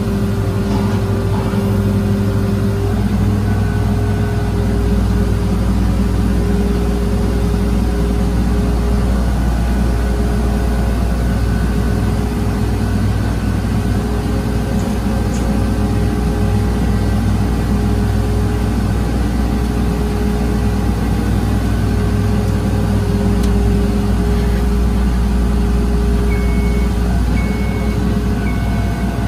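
Link-Belt 75RT rough-terrain crane's diesel engine running steadily under load while hoisting a scissor lift, heard from inside the operator's cab. Three short high beeps sound near the end.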